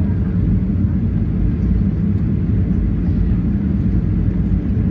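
Cabin noise inside a Boeing 737-800 on approach, low over the ground: a steady low rumble of its CFM56 jet engines and the airflow over the airframe.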